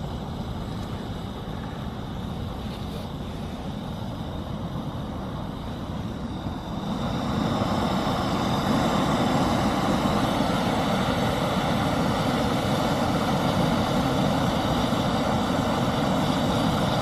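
Coleman FyrePower camping gas stove burning steadily under a pot of water; about seven seconds in the flame is turned up and the burner's rushing noise gets louder and stays so.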